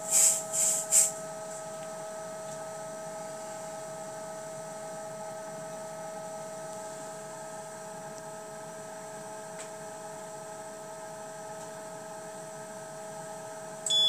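Three short hisses of aerosol test smoke being sprayed, in the first second or so, then the steady whine of the VESDA VLP aspirating smoke detector's air-sampling fan.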